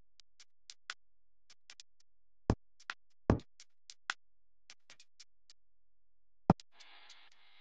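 Quiet electronic background music: a sparse drum-machine beat of light ticks with a few heavy low hits, and a short hissy swell near the end.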